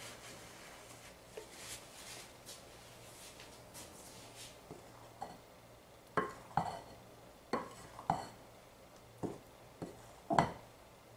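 Wooden spoon stirring powdered sugar into melted marshmallow in a glass mixing bowl for fondant: soft scraping at first, then from about halfway a string of irregular knocks of the spoon against the glass, the loudest near the end.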